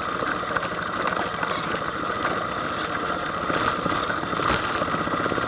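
ATV engine running steadily at low throttle, with a sharp knock about four and a half seconds in.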